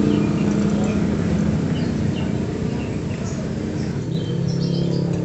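Steady drone of a vehicle engine running in the background, with a few faint chirps above it.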